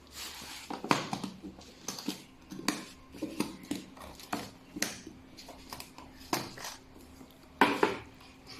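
Electric chiropractic adjusting gun firing single impulses: sharp clicks or knocks at an uneven pace, about one every half second to second, some in quick pairs, over a steady hum.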